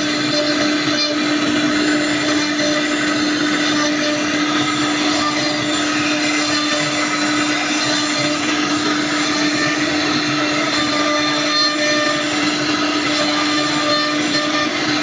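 CNC wood router running steadily: its spindle hums on one even low note under the dense rushing noise of the bit cutting wood.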